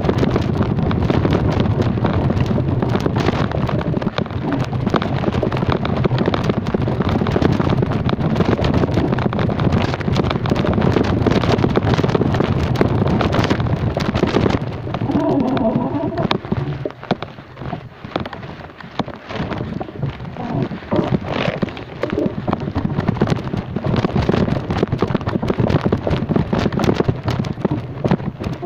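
Wind rushing over the microphone together with road noise while riding along, a heavy low rumble that eases off for a few seconds a little past halfway before building up again.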